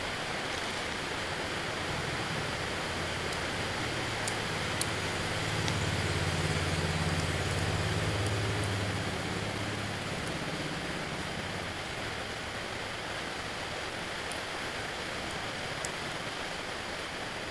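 Steady hiss of background noise, with a low rumble swelling from about four seconds in until about ten seconds in, and a few faint clicks.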